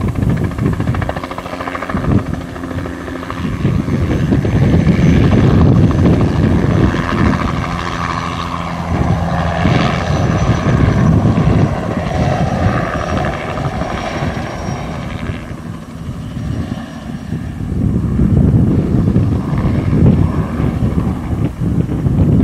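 Bell 206B-3 JetRanger III helicopter flying low on spraying passes: the beat of its two-blade main rotor and the run of its turbine engine, with a faint high turbine whine in the middle. The sound swells as it passes close and fades as it turns away, several times, with a dip about three quarters of the way through.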